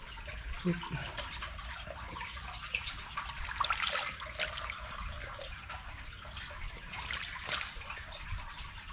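Shallow water trickling and splashing with small drips and wet crackling as hands press a dried plant sheath down into the water at the mouth of a culvert.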